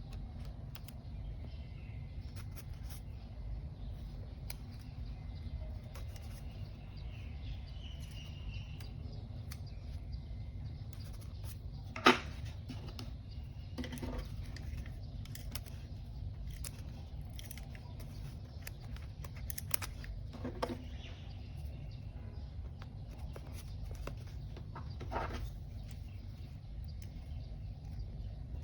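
Small handling sounds of journaling with paper and stationery: scattered light clicks and taps over a steady low hum, with one sharp tap about twelve seconds in and a few softer ones later.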